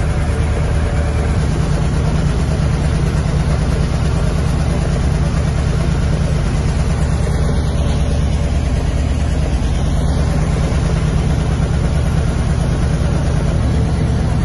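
Aerial ladder fire truck's engine running steadily at idle, a deep, even drone that does not change.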